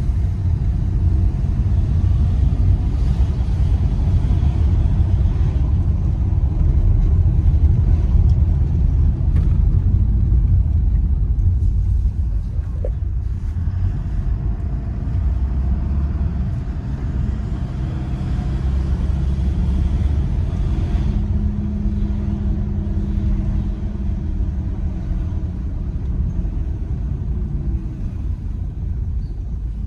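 A car driving on a city street, heard from inside the cabin: a steady low rumble of engine and road noise, easing a little about halfway through.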